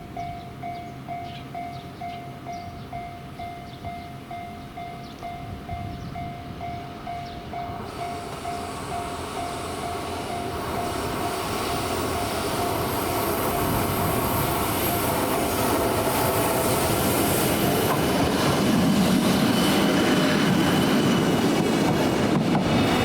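Level-crossing warning bell ringing in even pulses, about two to three a second, as a freight train hauled by an EF66 electric locomotive comes up and passes, growing steadily louder from about eight seconds in. A thin high wheel squeal joins in midway, and wheel clacks over rail joints come near the end.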